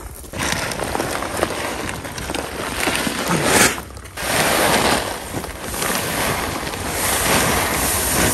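Chickpea seed pouring from a jute sack onto a heap on a tarp, a steady rushing hiss that comes in surges as the sack is shaken out.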